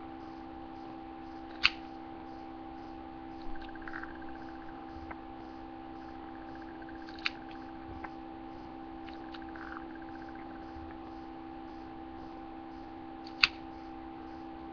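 Steady electrical hum with three sharp clicks spaced several seconds apart, and faint handling rustles.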